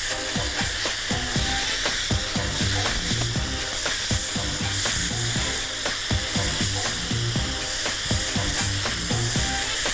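Calamari sizzling on a hot ridged grill pan, a steady hiss as the squid strips are laid on the hot surface.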